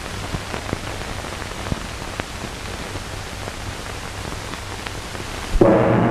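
Hiss and crackle of an old film soundtrack, with scattered clicks and a low hum. Near the end, music starts suddenly and loudly.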